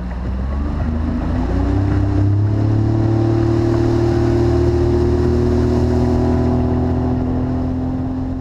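Outboard motor on a small aluminium boat speeding up over the first two seconds or so, its pitch rising, then running steadily at speed.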